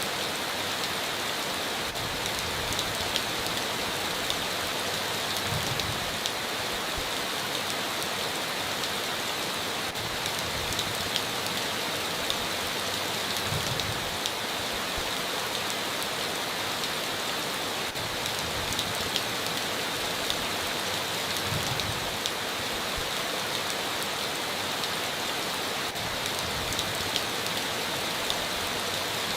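Steady heavy rain falling on a tin roof, a dense even hiss with scattered drop ticks.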